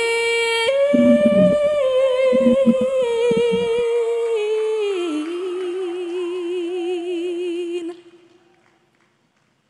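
A female singer holds long wordless notes that glide downward and settle into a sustained note with wide vibrato, over a few low accompaniment notes early on. The singing stops about eight seconds in, leaving near silence.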